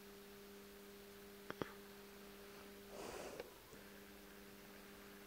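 Near silence: a faint steady electrical hum in the room, with two small clicks about a second and a half in and a brief soft breathy noise about three seconds in.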